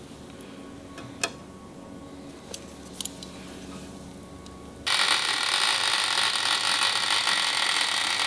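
A few light clicks as a dial caliper is handled, then a milling machine spindle fitted with a face mill running: a loud, steady high whine and hiss that starts abruptly about five seconds in.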